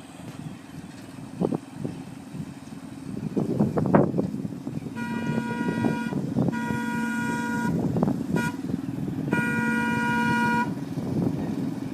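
A miniature railroad locomotive's horn sounds the grade-crossing signal: two long blasts, a short one and a final long blast. The locomotive's motor runs steadily underneath, with a few knocks before the horn starts.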